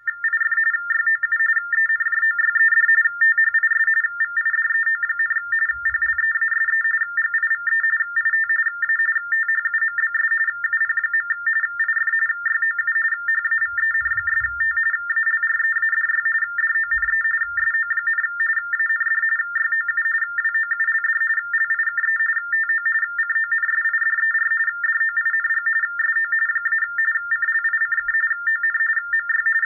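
Baudot TTY/TDD modem tones: two high tones switching rapidly back and forth in a continuous warbling data chatter, broken by many tiny gaps. This is a typed text message being sent down the line in Baudot code, which the Ultratec Supercom decodes and scrolls across its display.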